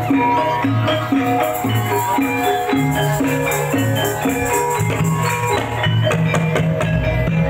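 Javanese gamelan-style accompaniment for an ebeg dance: a steady rhythmic pattern of short notes on struck pitched keys over drums.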